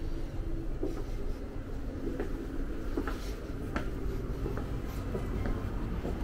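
Footsteps: soft taps about once a second over a steady low rumble of room noise.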